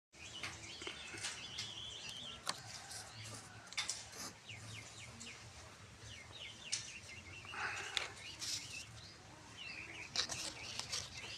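Birds chirping and calling in quick, wavering notes, with scattered sharp clicks.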